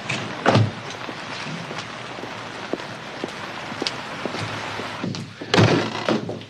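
Steady hiss of rain with scattered small ticks, broken by a thud about half a second in and a louder door bang near the end, as a door is pushed open and shut.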